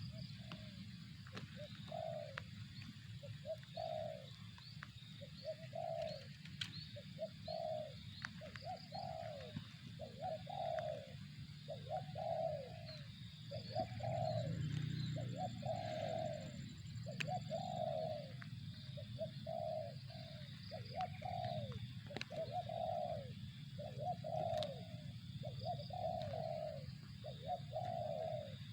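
Spotted dove cooing over and over, short falling coos about once a second, with faint high chirps from small birds above it and a low steady hum underneath.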